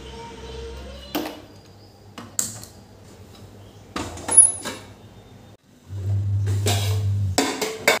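A sharp metal clack about a second in as an iron gate is shut, then stainless steel pot-and-lid clinks on a gas stove, with one loud ringing clink. A steady low hum lasts about a second and a half before a closing clatter of the pot.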